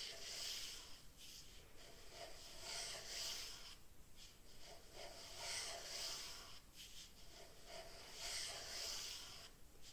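Ink pen drawing long sweeping strokes across paper: a soft scratchy hiss that swells four times, about two to three seconds apart.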